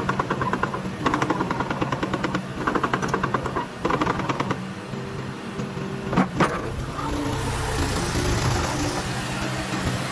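Komatsu PC58-8 compact excavator's four-cylinder 4D88E diesel engine running steadily. It is joined by bursts of rapid clattering in the first half, two sharp knocks about six seconds in, and a rising hiss after that.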